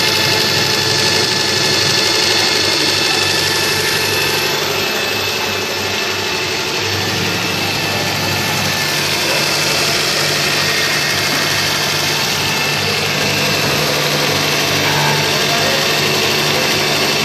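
Belt-driven coil-making machine running steadily: an even mechanical drone with faint steady whining tones, and a low hum that firms up about seven seconds in.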